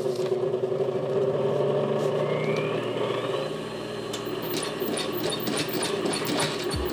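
Industrial sewing machine's motor switched on and humming steadily, with a whine that rises as it spins up about two to three seconds in and then holds. A run of light clicks comes in the second half.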